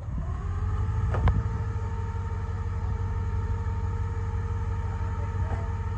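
Winch whining steadily under load over the low rumble of an off-road truck's engine, the whine rising slightly in pitch as it starts, then holding level. A sharp click about a second in.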